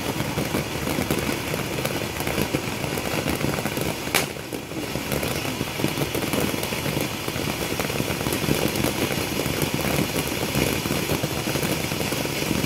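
Ground fountain firework burning with a steady, dense crackle and hiss, with one sharp crack about four seconds in.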